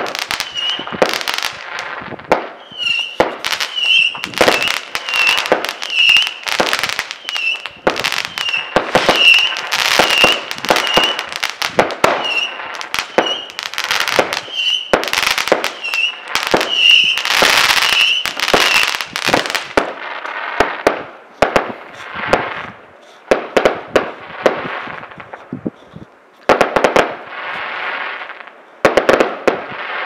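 Aerial fireworks display: a rapid run of sharp bangs from bursting shells for about the first twenty seconds, with a short high note recurring about once a second. After that the bangs thin out into fewer reports, separated by longer stretches of rushing noise.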